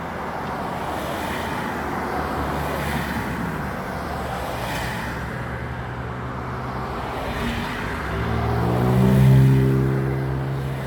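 Road traffic with an engine running steadily underneath. Near the end a vehicle accelerates close by, its engine note rising and loudest about nine seconds in.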